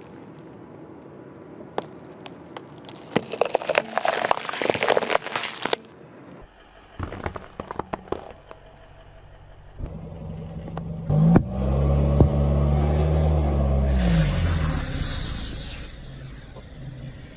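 Car tyre rolling over and crushing bell peppers with a run of wet crunching and crackling, then more brief crackles. From about ten seconds a car engine runs loudly and revs up and back down, and near the end an aerosol can bursts under the tyre with a hiss of spraying foam.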